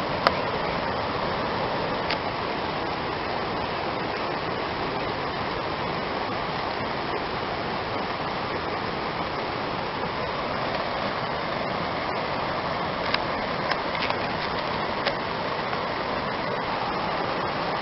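Steady rush of water: tsunami water draining back out over the reef, with surf breaking at the reef edge. A few sharp clicks stand out, one just after the start and several about two thirds of the way in.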